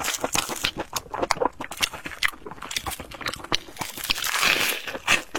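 Close-miked chewing of crispy fried bread: rapid crisp crunches and mouth clicks, with a denser burst of crunching about four seconds in.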